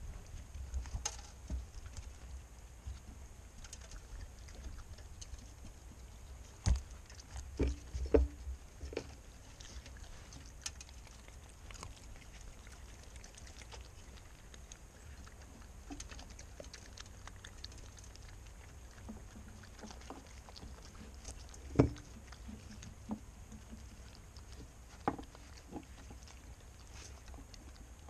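Raccoons foraging in scattered birdseed right next to the microphone: soft pattering and rustling of paws and snouts in the seed, with occasional knocks and thumps. A cluster of loud knocks comes about a quarter of the way in, and one sharp thump about three-quarters through.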